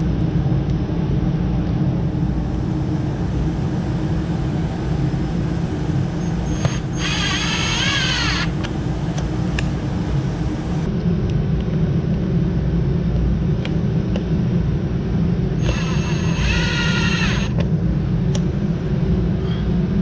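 Hart cordless impact driver running in two bursts of about a second and a half, driving self-drilling screws through plastic lawn edging into the bumper, its pitch wavering as each screw goes in. A steady low rumble runs under it throughout.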